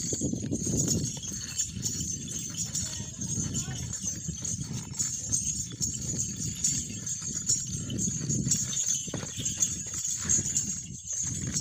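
Hooves of a Marwari mare stamping and shifting on a woven-mesh cot as she dances, an uneven run of thuds.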